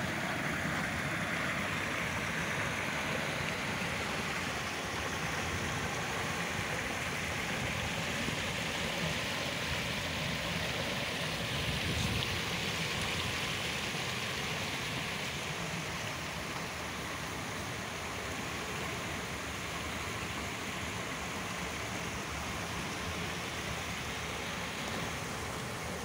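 Mountain stream rushing over boulders and a small cascade, a steady, even rush of water.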